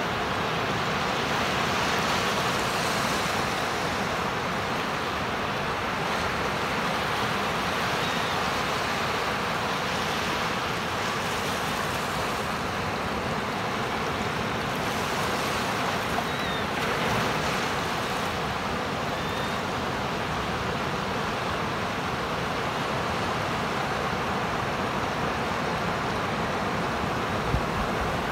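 Waves breaking and washing up a sandy beach: a steady rushing surf noise that swells and eases now and then.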